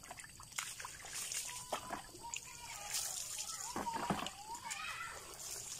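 Water scooped by hand from a bucket and splashed over a person's body, with repeated splashes and trickling. A voice is heard briefly a little past the middle.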